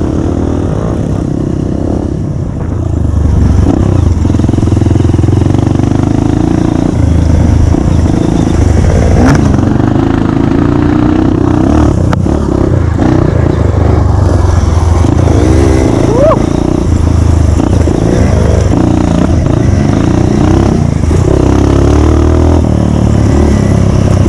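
Trail motorcycle engine running under way while riding, its revs rising and falling. It gets louder about three seconds in.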